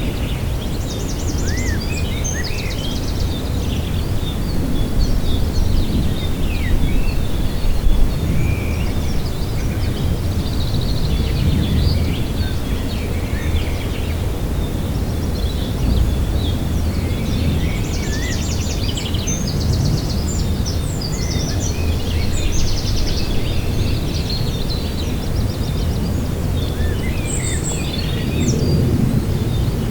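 Outdoor lakeside ambience: a steady low rumble of wind, with several birds chirping and singing over it. Quick high trills come about a second in and again around two-thirds of the way through.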